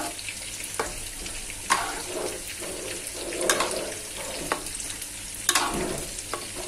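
Spatula stirring thick rice-flour satay sauce in a metal wok, scraping and knocking against the pan about once a second. The sauce is kept moving so it does not go lumpy as it thickens.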